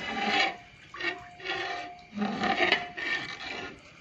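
Soaked rice being crushed by hand and dropped into a large pot of milk, the milk splashing and sloshing in several uneven bursts, with a sharp click about three quarters of the way through.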